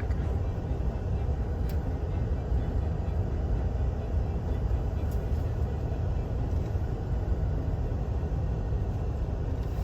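Moving vehicle's steady low engine and road rumble while driving slowly.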